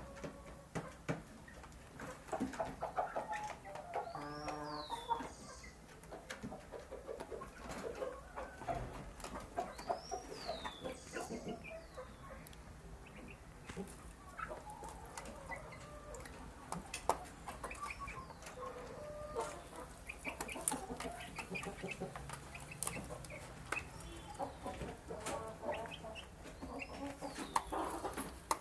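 Young chickens clucking softly as they feed, over many short clicks and taps. A high, arched chirp stands out every several seconds.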